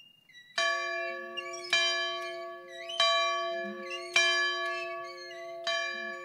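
Large church bell on a yoke stand being swung and rung, five strokes about a second apart, each ringing on and overlapping the next; the last stroke comes near the end and is left to die away.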